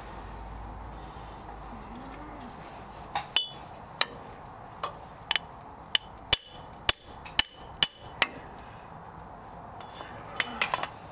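Hammer tapping a sleeve to drive a new front differential axle shaft oil seal into a Toyota 4Runner's differential housing. About a dozen sharp taps, each with a short ring, come a little under a second apart, then a quick few more near the end. The seal is being worked in a little at a time to get it to an even depth.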